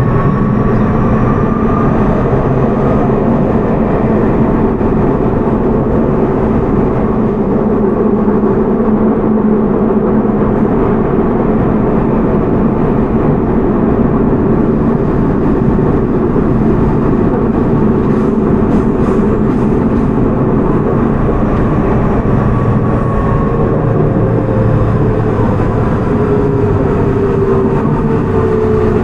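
Toei 6300 series subway train with Hitachi GTO-VVVF traction, heard from inside the car. In the first few seconds the inverter and motor whine rises in pitch as the train accelerates. Through the middle there is steady running and wheel-on-rail noise, and over the last several seconds the whine falls in pitch as the train slows under braking.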